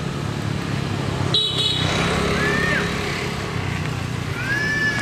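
A motor engine running steadily throughout, with a brief high squeak just over a second in, a short arched high call about halfway, and a longer high call starting near the end.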